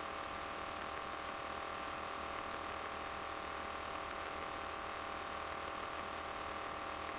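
Steady drone of an RV-9A light aircraft's piston engine and propeller in cruise flight, even and unchanging throughout.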